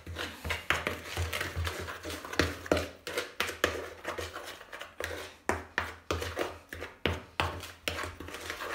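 Metal cutlery stirring dry flour, sugar and baking powder in a plastic mixing bowl: a quick, irregular run of scraping and tapping strokes, a few a second, as the utensil hits the bowl's sides and bottom.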